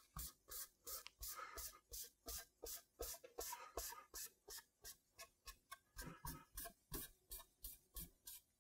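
Faint cloth rag rubbing dye into the wood of a quilted maple guitar top in quick, even back-and-forth strokes, about three a second.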